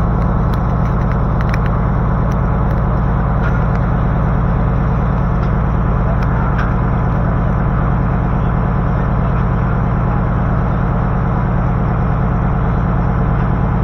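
A boat's engine running steadily at cruising speed, heard from on board the boat.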